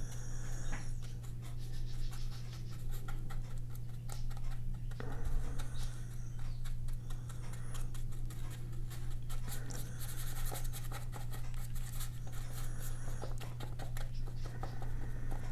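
Paintbrush bristles scratching and dabbing thick acrylic gouache onto grey sketchbook paper in many short, irregular strokes, over a steady low hum.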